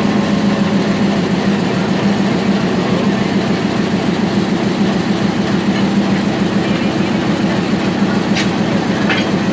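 Sri Lanka Railways Class M10 diesel locomotive's engine running steadily at a standstill, a loud even drone. Two brief sharper sounds come near the end.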